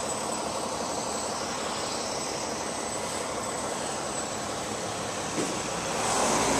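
Steady street traffic noise, with a heavier vehicle drawing closer near the end, its low hum growing louder.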